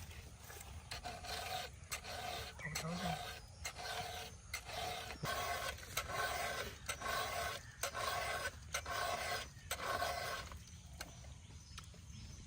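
A hand file rasping on metal in even strokes, about one a second, sharpening an edge. The strokes stop a little over ten seconds in.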